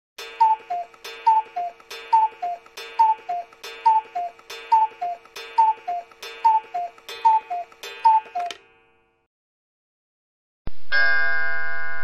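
Antique pendulum clock ticking: a clear, ringing tick-tock with the tick higher in pitch than the tock, a little more than one pair a second, stopping about eight and a half seconds in. Near the end a loud, sustained ringing clock chime starts.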